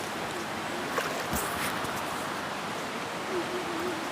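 River water flowing steadily, with a couple of small knocks about a second in.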